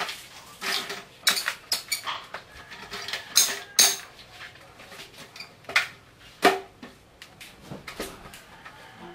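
Irregular light knocks, clicks and clatter, about a dozen over several seconds, as of small hard objects being handled and tapped.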